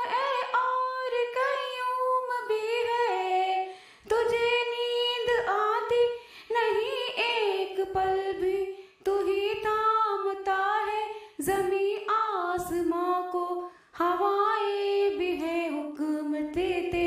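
A woman's voice singing a hamd, an Urdu devotional prayer song to God, in sung phrases with bending, drawn-out notes and short breaths between lines.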